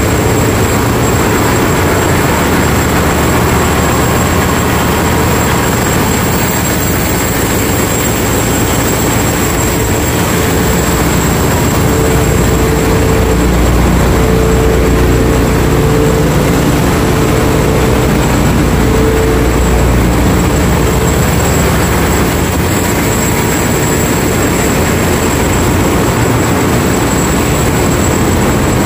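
Loud, steady din of a ship's engine-room machinery running, with the generator sets and pumps going, under a constant high-pitched whine.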